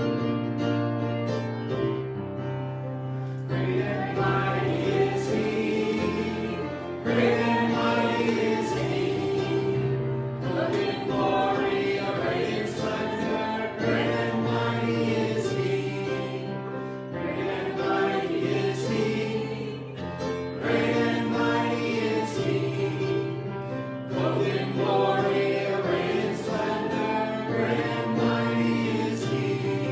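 Worship song sung by a group of voices together, over a keyboard accompaniment with long-held bass notes.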